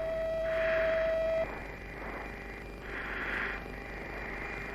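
Mirage 2000 cockpit audio with radio hiss. A steady tone cuts off about a second and a half in, then soft puffs of hiss come about every two and a half seconds.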